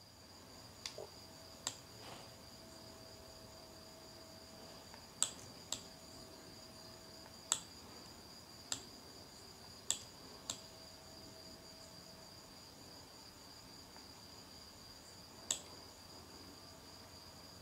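Computer mouse clicking about ten times at uneven intervals while a text box is resized, over a faint steady high-pitched whine.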